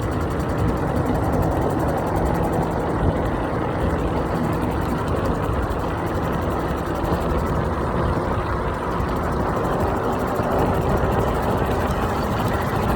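Steady rush of wind and rumble from the road while riding an iENYRID M4 Pro S+ electric scooter, with no breaks or sudden sounds.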